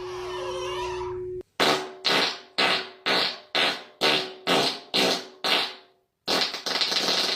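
Fart sound effect. A held buzzing tone is followed by a run of about nine short, sharp blasts, roughly two a second, each fading fast. After a brief gap a continuous sputtering stretch begins.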